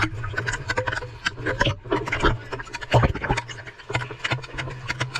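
Irregular scratching and clicking, close and scratchy, over a steady low hum.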